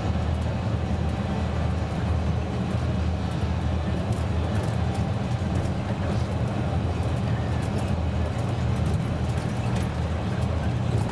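Inside a Karosa C954E intercity bus under way on a country road: the steady drone of its diesel engine with road and tyre noise.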